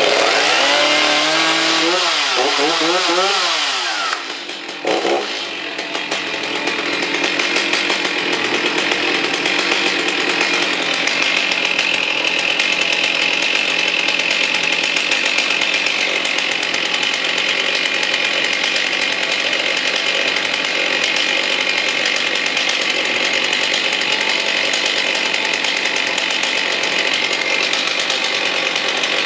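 Stihl 039 64cc two-stroke chainsaw started by its pull cord, its engine speed surging up and down for the first few seconds, dipping with a brief blip about four to five seconds in, then running steadily.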